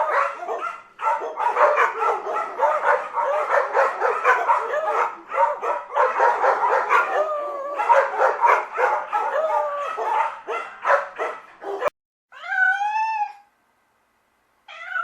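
Several dogs yapping and yipping in a dense, overlapping stream that cuts off abruptly about twelve seconds in. Then a cat meows once, and again at the very end.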